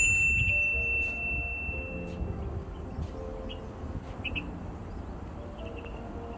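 Subscribe-button overlay sound effects: a click, then a bright bell ding that rings out over about two seconds, over a steady low background rumble.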